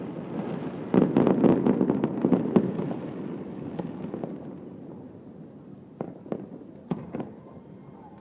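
Fireworks going off: a rapid cluster of loud bangs and crackles about a second in, a rumble that slowly fades, then a few scattered sharp cracks near the end.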